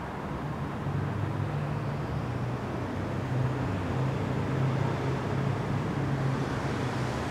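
Road traffic noise: a steady low engine rumble from vehicles on the street, growing a little louder about a second in.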